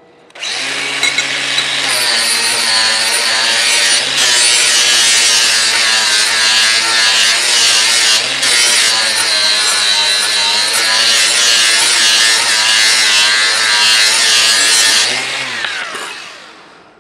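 Cordless 18V Makita angle grinder starting up and running with its abrasive disc pressed against steel, a steady motor hum under a harsh grinding hiss. Near the end it is lifted off and spins down.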